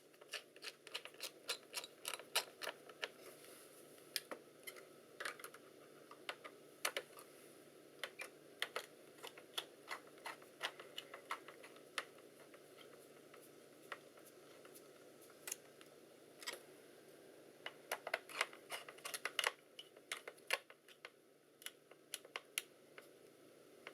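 Irregular light clicks and taps of a small screwdriver and metal parts as screws are driven back into a laptop's CPU heatsink and cover, in loose clusters with a pause midway.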